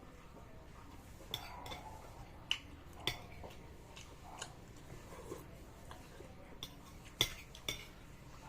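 Eating utensil clinking against a bowl of lomi noodle soup: several separate sharp clinks, the loudest about seven seconds in.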